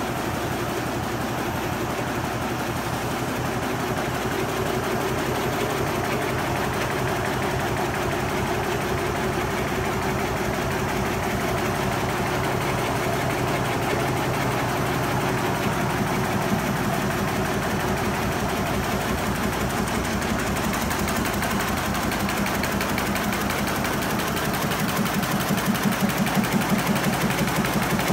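Richpeace computerized multi-needle quilting machine running, its needles stitching in a fast, steady mechanical rhythm. About 25 seconds in, a louder pulsing beat comes in.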